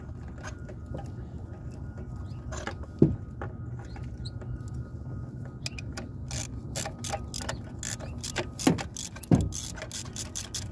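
Socket ratchet clicking in quick runs as a new spark plug is wound down and tightened into the cylinder head. A few scattered clicks and a sharp knock come before the runs.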